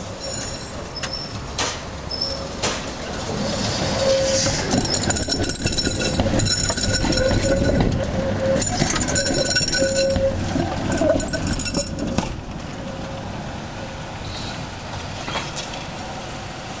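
Old Konstal 105N tram rolling over a worn, rough set of points, a "rumble switch": wheels knocking and clattering over the switch with high squealing from the wheels. It is loudest through the middle, then falls to a steadier rumble near the end as the tram draws away.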